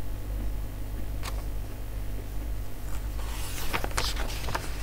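A few sharp computer mouse clicks, one about a second in and several close together near the four-second mark, over a steady low electrical hum.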